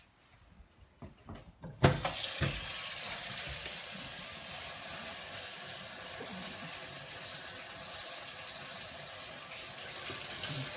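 A few light clicks, then a faucet is turned on about two seconds in and water runs steadily into a sink, a test of the plumbing that shows no leaks.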